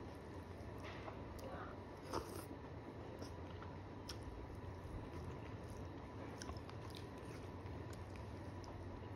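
Close-up eating sounds: a person chewing a mouthful of rice and curry, with soft wet mouth clicks and smacks scattered through and one sharper click about two seconds in. A steady low hum runs underneath.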